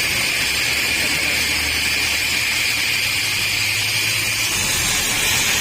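A machine-shop power tool running steadily: a constant high whine over a hiss, with a low hum underneath that fades out about four and a half seconds in.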